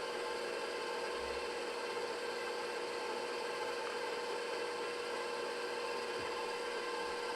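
A small electric motor running steadily with an even whir.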